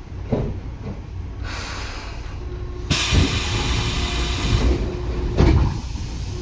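Tobu 9000 series commuter train heard from on board: a loud hiss of compressed air, lasting nearly two seconds, about three seconds in, over the steady low rumble of the car. There are low thumps near the start and near the end.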